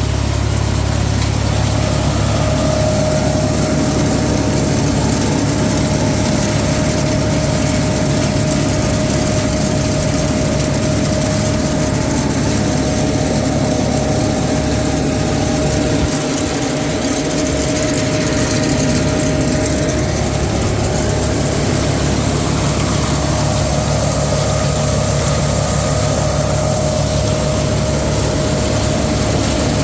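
Hasatsan H2200 hazelnut harvesting machine running steadily: a constant engine drone with a steady whine above it, briefly dipping about halfway through.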